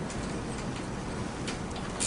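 A 12 mm wrench working the handlebar bracket nuts off: a few faint metallic clicks near the end over a steady hiss.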